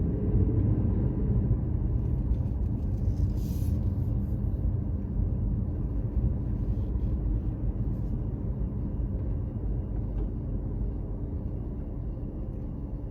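Car running with a steady low engine and road rumble, slowly getting quieter.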